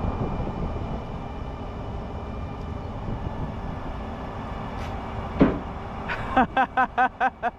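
Forklift engine running steadily, with one sharp clank about five seconds in.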